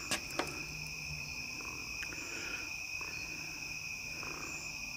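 Steady night chorus of crickets and other insects, a continuous high trilling at two pitches, with a few faint clicks.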